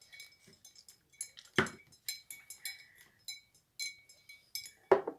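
A spoon stirring liquid in a container, clinking against its sides again and again with a short ringing tone, with two louder knocks about one and a half seconds in and near the end.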